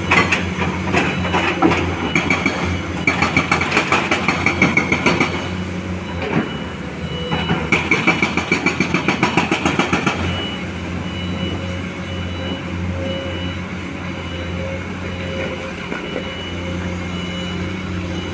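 Heavy diesel excavation machinery running steadily, with three stretches of rapid, even knocking or clatter in the first ten seconds, then only the steady engine.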